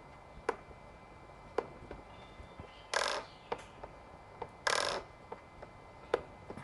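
Light clicks and handling noise from the Yuneec ST16 transmitter's left joystick being pushed to full and released, with two longer scraping sounds about three and five seconds in.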